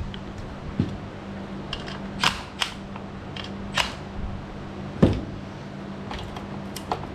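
Scattered sharp metallic clicks and knocks from hand tools and parts as the chainsaw's bar is loosened and the chain tension adjusted, the loudest about five seconds in, over a steady low hum.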